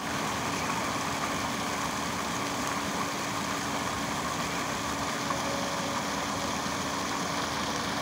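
Fountain jets spraying and splashing into a shallow basin: a steady rush of falling water, with a faint steady hum underneath.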